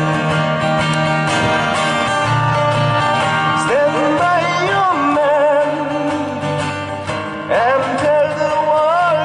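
Acoustic guitars strumming chords together with a sung melody, the voice wavering with vibrato and coming in about halfway through and again near the end.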